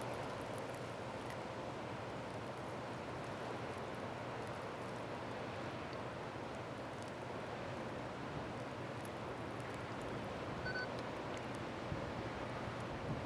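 Steady rushing noise of blizzard wind, even and unbroken.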